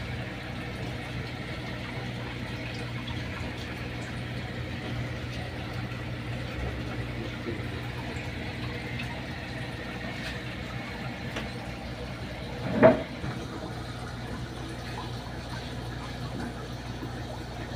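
Fish-tank water and aeration pump running, with a steady hum and water pouring and splashing into the tank. One brief loud sound about 13 seconds in.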